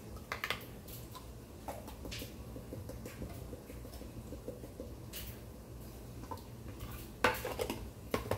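Light clicks and knocks of spice jars, lids and a plastic container being handled on a kitchen counter, scattered and irregular, with a louder run of knocks near the end. A steady low hum sits underneath.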